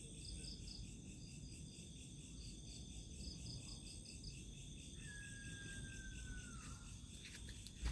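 A chorus of night insects, crickets among them, chirping faintly in steady pulses, with a high steady trill behind them. About five seconds in, one long whistle sounds and falls slightly in pitch before fading out.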